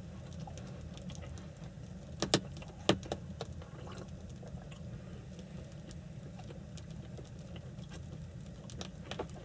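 A steady low hum, with a few sharp clinks and taps of a metal mug and cutlery on a table: two loud ones two to three seconds in and a couple more near the end.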